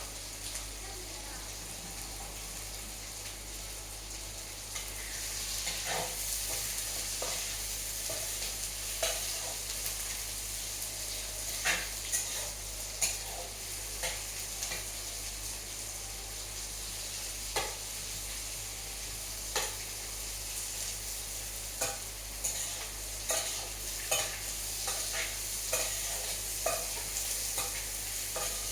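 Food sizzling as it fries in hot oil in a pan, the sizzle growing louder about five seconds in, with a metal spoon clinking against the pan every second or two as it is stirred.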